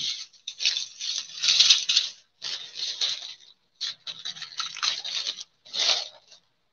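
Small clear plastic bags of diamond-painting drills crinkling and rustling as they are handled, in a string of irregular bursts.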